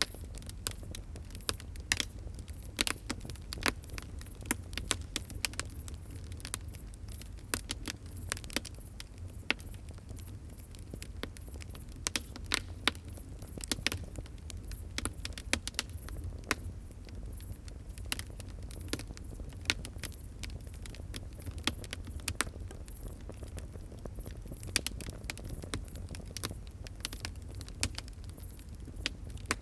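Fire crackling: many sharp, irregular pops and snaps over a steady low rumble.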